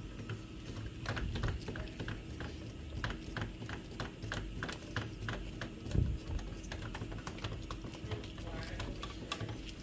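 Irregular small clicks and taps of a hand screwdriver turning screws to fasten a printer's power supply board in place, a few clicks a second, with one louder knock about six seconds in.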